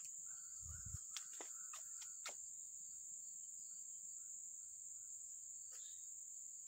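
Faint, steady high-pitched chorus of insects. A few soft clicks come in the first couple of seconds and once near the end.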